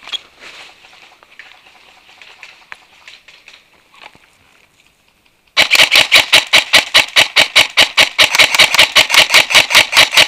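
Airsoft rifle firing a long full-auto burst: a rapid, even stream of sharp shots that starts suddenly about halfway through and runs on for several seconds.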